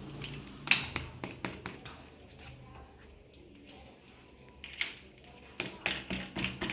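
Irregular clicks and light taps of a brake lever and handlebar grip being handled and fitted back onto a mountain bike handlebar, a few near the start and a quick run of them near the end.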